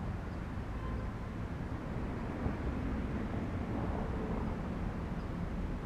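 Steady low rumble of wind buffeting the camera microphone, with no clear motor whine or distinct events.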